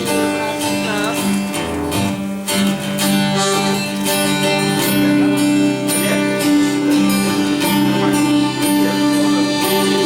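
Acoustic guitar strummed in steady chords, with no singing.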